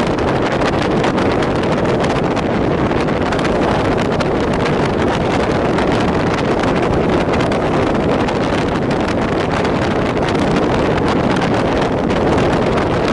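Passenger train running at speed: a steady, loud rush of wind over the microphone mixed with the running noise of the wheels on the track, with many small irregular clicks.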